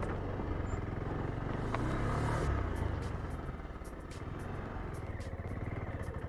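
Motorcycle engine running at low revs as the bike creeps along, a steady pulsing rumble that swells briefly about two seconds in, with scattered faint clicks.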